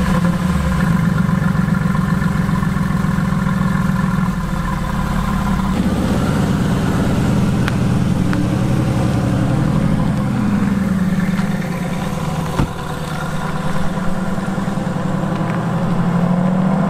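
Mercedes-AMG GT S twin-turbo V8 idling steadily just after being started. A single sharp click comes about twelve and a half seconds in, and the engine note rises slightly near the end as the car moves off.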